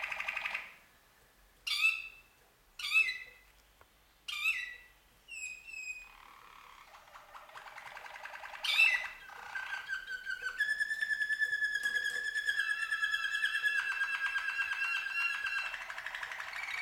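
Domestic canaries singing: a fast rattling trill, then three sharp falling whistled notes about a second apart, and from about halfway a long rolling trill of held, ringing tones.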